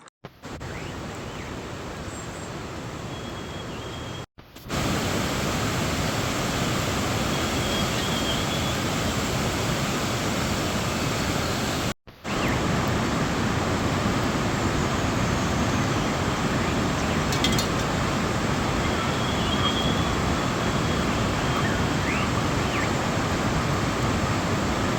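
Steady rushing noise that breaks off for a moment twice, where the footage is cut, and is louder after the first break.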